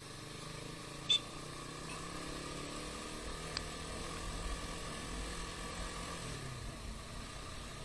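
Motorcycle engine running steadily while riding, its note falling near the end as it slows, over a low rumble. A short, sharp high chirp comes about a second in.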